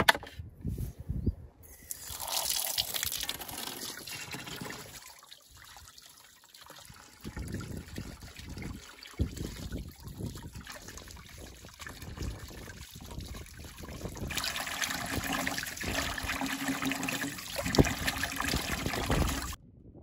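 Water trickling and splashing unevenly, louder in the last few seconds and then cutting off abruptly.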